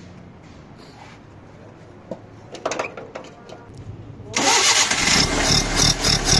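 An engine being started: a few knocks and clicks, then about four seconds in it catches and runs loud and rough. Just afterwards the petrol is said to have run out.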